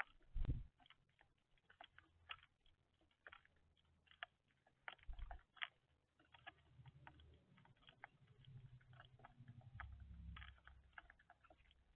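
Birds pecking at seed on a feeder: faint, irregular clicks and taps. A couple of low thumps, about half a second in and about five seconds in, are the loudest sounds.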